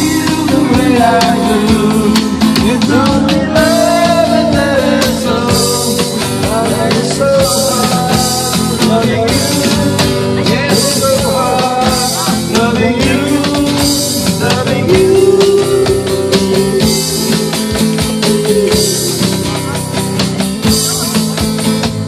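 A band jamming live on a rock tune with electric guitar and drum kit, with a melodic line that may be a voice. The playing eases off in loudness near the end.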